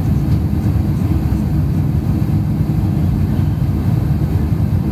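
Steady cabin noise of a Boeing 747-400 in flight, heard from a window seat behind the wing: an even, low drone of engines and rushing air.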